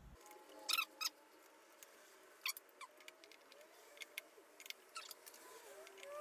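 Faint metallic clicks and ticks of an Allen wrench and bolts on a dirt bike's exhaust end cap as it is bolted back on, the loudest a pair of clicks about a second in, with faint squeaks in between.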